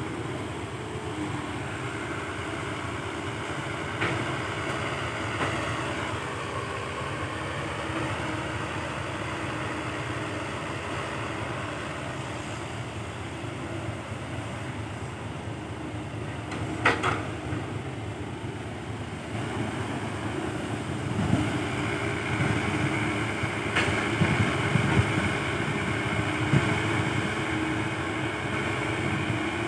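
Crawler excavator working: its diesel engine runs under load with a steady hydraulic whine as it digs and swings soil into a dump truck. There is a single sharp clank about halfway through, and the machine works louder with several heavy thuds near the end.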